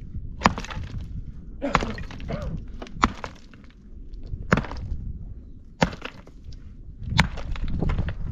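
Stone being struck with a hard tool: six sharp blows, each about a second and a half apart.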